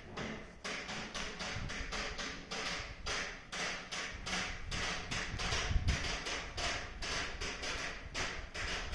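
Footsteps of a person walking at a steady pace, a quick even run of sharp steps.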